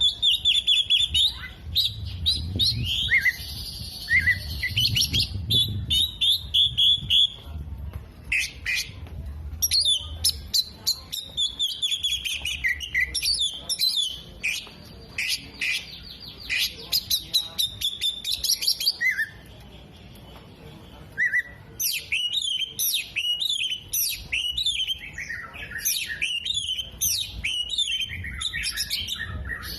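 Oriental magpie-robin singing a fast, varied song of chirps, whistles and trills, laced with imitations of other birds' calls. The song pauses briefly about two-thirds of the way in.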